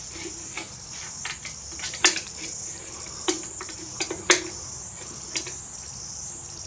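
Wire being fed through a hole in a Harley-Davidson's metal rear fender, clicking and tapping against the metal about five times, a few of the taps with a brief ring.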